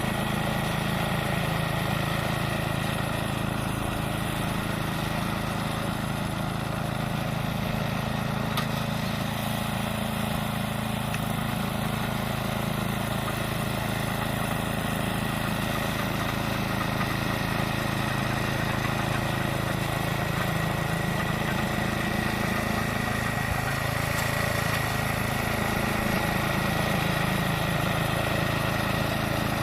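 Toro 828 two-stage snowblower's single-cylinder engine running steadily at an even pitch.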